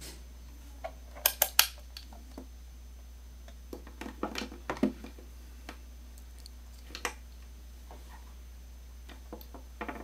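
Plastic clicks and clatter of RJ45 network cable plugs and a cable tester's ID tag being unplugged and set down on a tabletop. Three sharp clicks about a second in are the loudest. A cluster of lighter knocks follows around four to five seconds, then scattered taps.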